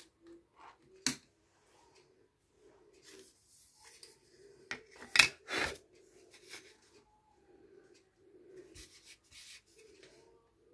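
Wooden plaques handled on a wooden board: a sharp click about a second in, then a cluster of knocks midway as a blank plaque is set down, with light rubbing and scraping in between.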